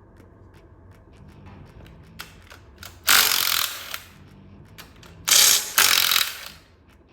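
A ratchet tool runs in two loud bursts, a short one about three seconds in and a longer one about five seconds in, as fasteners are worked loose on the bottom end of a 5.3-liter V8. Faint clicks of tools and parts are heard between the bursts.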